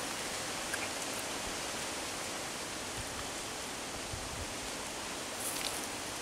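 Steady, even background hiss with a few faint clicks.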